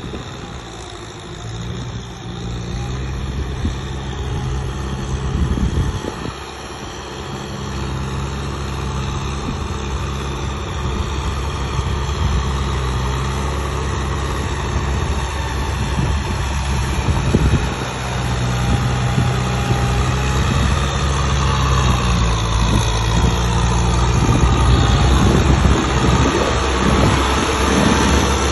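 Diesel engine of heavy farm or earthmoving machinery running steadily, with occasional knocks, growing louder over the stretch.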